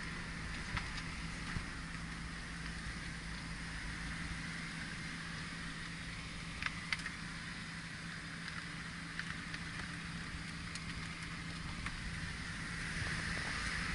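Car driving slowly, its engine and tyres making a steady low hum under a faint even hiss, with a few light ticks.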